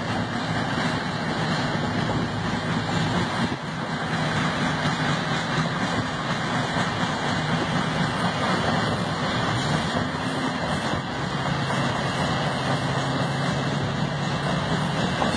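Steady driving noise of a road vehicle at speed: tyre, wind and engine noise with a low engine hum that drifts slightly in pitch.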